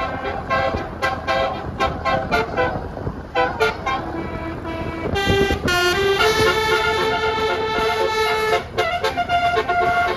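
Bus 'telolet' multi-tone horn playing a tune in the 'dut dut' style: rapid short staccato toots, then from about five seconds in a run of longer held notes stepping in pitch, breaking back into short toots near the end.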